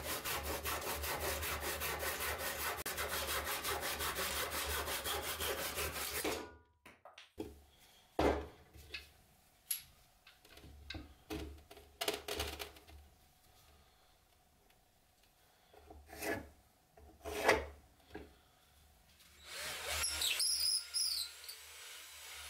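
Hand saw cutting through a wooden block clamped in a vise, in quick, even back-and-forth strokes that stop about six seconds in. A few scattered knocks of the wood being handled follow. Near the end a hand-held drill spins up with a rising and falling whine as its bit bores into the block.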